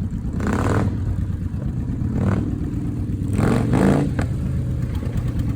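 Motorcycle engine running, picking up revs with a rise in pitch about three and a half seconds in, with short gusts of noise over it.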